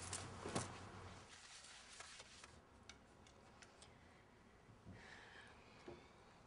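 Near silence with a few soft clicks and taps from ironing: a steam iron lifted and set down on the ironing table and clothes handled. The two clearest clicks come within the first second, with fainter ticks a couple of seconds later.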